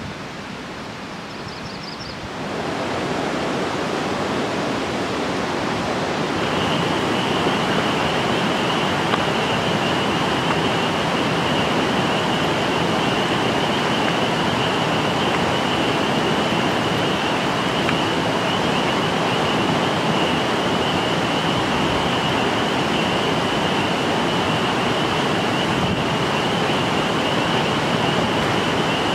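Steady rush of nearby river rapids, which grows louder about two seconds in. A thin, steady high-pitched whine joins about six seconds in and holds.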